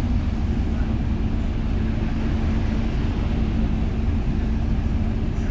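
Seoul city bus running, heard from inside the passenger cabin: a steady low rumble with a constant hum and no sudden knocks or changes.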